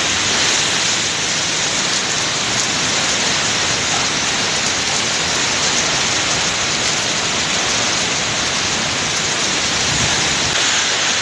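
Typhoon wind and heavy driving rain: a loud, steady rushing hiss.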